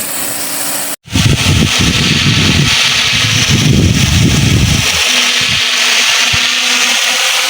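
Rain gun irrigation sprinkler spraying water, a loud steady hiss that starts after a sudden cut about a second in, with an irregular low rumble for the next few seconds.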